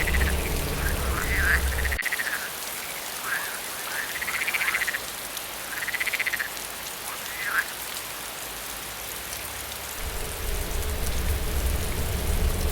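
Frogs croaking in short, pulsed, arching calls over the steady hiss of rain. A low wind rumble cuts out about two seconds in and comes back near the end.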